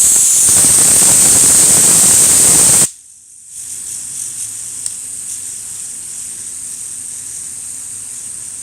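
A fidget spinner being 'supercharged' by a jet of air: a loud hissing blast for about three seconds that cuts off suddenly, then after a short break a quieter steady hiss as it goes on.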